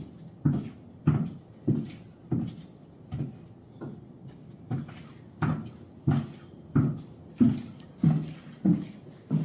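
Footsteps of a woman walking in high-heeled ankle-strap shoes, a steady knock about every 0.6 seconds, the steps softer for a moment near the middle.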